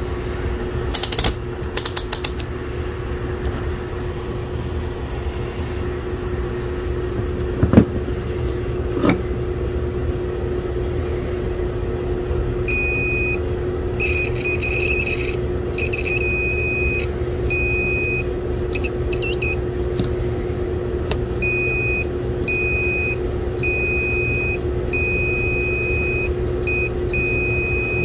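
A steady machine hum with a constant low tone, with a few light clicks and knocks. From about halfway, a run of high electronic beeps, roughly one a second.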